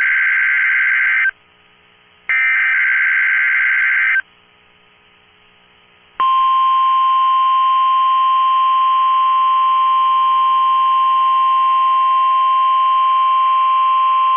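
NOAA Weather Radio receiver sounding a test tornado alert. Two bursts of screechy digital header data (SAME code), each about two seconds, are followed about six seconds in by the steady single-pitch 1050 Hz warning alarm tone, which holds without a break.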